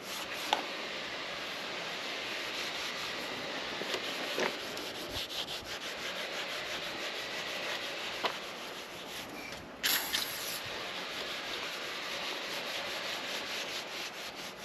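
Steel wool scrubbing rust off pitted steel motorcycle parts wetted with WD-40 penetrant, a steady scratchy rubbing with a few light clicks. A short hiss sounds about ten seconds in.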